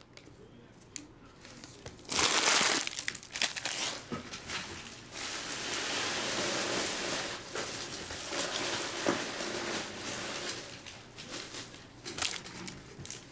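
Foil trading-card pack wrappers crinkling and tearing as packs are opened and the wrappers handled. There is a loud burst about two seconds in, a longer run of crinkling in the middle, and a few short crackles near the end.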